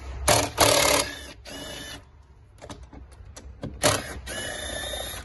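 Cordless impact wrench hammering on the bolts at the top mount of a rear shock absorber, in two bursts: one in the first two seconds and another from about four seconds in. A few light clicks come in between.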